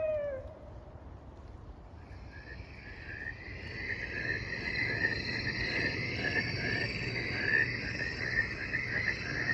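A single short falling animal call, then about two seconds in a dense chorus of many rapid animal calls starts up and grows steadily louder.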